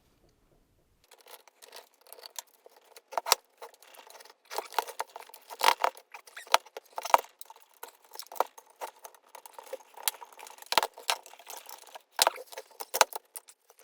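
Irregular metallic clicks, clinks and light rattles starting about a second in: the sheet-metal housing and screws of a DEC H7874 switched-mode power supply being handled as the unit is opened.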